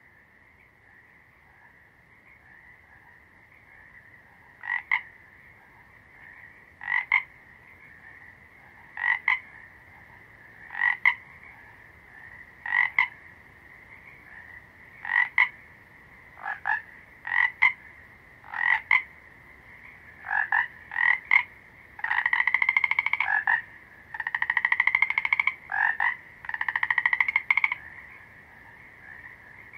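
Frogs calling: short croaks about every two seconds over a steady high trill, with longer rattling calls near the end.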